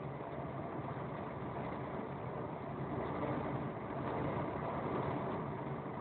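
Steady engine drone and tyre noise of a vehicle driving on a wet road, heard from inside the cab; it gets slightly louder about halfway through.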